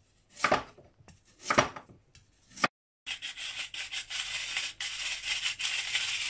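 A kitchen knife cutting through a raw carrot onto a plastic chopping board, three cuts. Then, from about three seconds in, a hand-cranked rotary drum grater shredding carrot with a continuous scraping.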